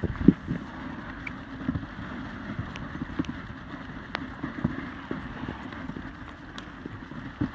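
Dog sled pulled over snow by a team of sled dogs: the runners scrape steadily, with scattered clicks and knocks from the sled and harness.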